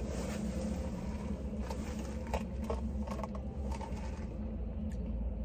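Steady low hum of a car at idle, heard from inside the cabin, with a few faint taps and clicks.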